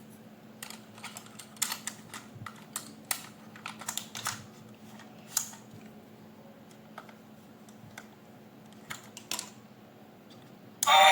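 Scattered light clicks and taps of plastic toy parts and packaging being handled, coming irregularly several times a second at first and then more sparsely. Loud music starts abruptly near the end.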